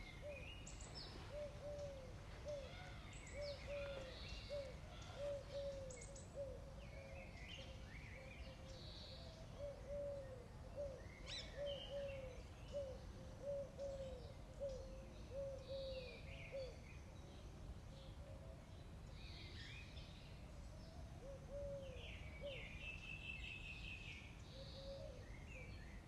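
Outdoor ambience: birds chirping, over a steady low rumble. Through the first two-thirds runs a series of short, low, rising-and-falling notes, about two a second, that thin out to a few near the end.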